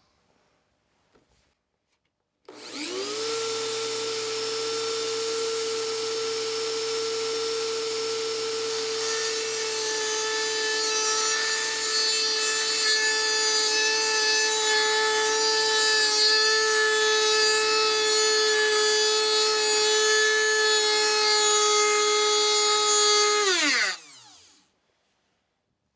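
Dremel 4000 rotary tool spinning up about two and a half seconds in and running at a steady high whine while its small blue grinding stone grinds into a steel screwdriver. Near the end the motor cuts out and winds down to a stop, which the owner puts down to worn motor brushes.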